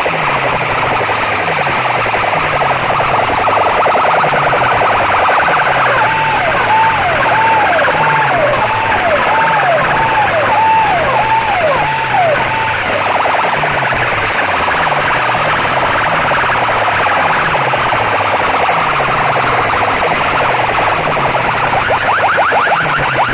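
Clusters of horn loudspeakers blaring a loud, siren-like electronic effect. A low falling tone repeats over and over under a noisy wash. From about six seconds in, a higher wail falls again and again, some eight times, then stops.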